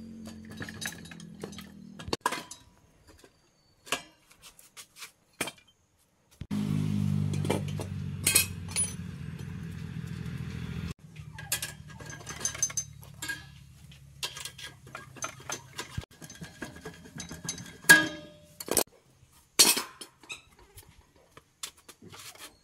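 Metal tools and parts clinking and knocking, with a motor humming in stretches, loudest a third of the way in.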